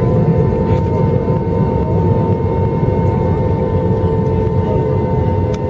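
Airbus A321 jet engines running at taxi idle, heard inside the cabin as a steady rumble with a steady hum and a higher whine over it.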